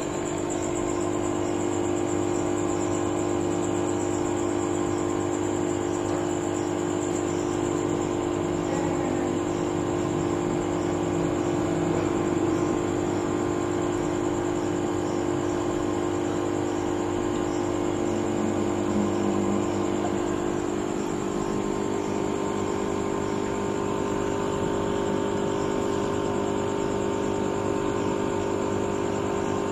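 Aquarium pump humming steadily: a low, even mechanical hum that holds one pitch.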